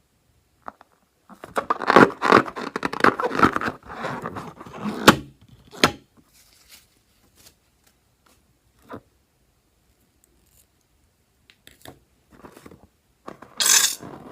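Hands working sticky slime, with about four seconds of dense crackling and squelching. A sharp click comes just before six seconds, then a short loud rustling burst near the end.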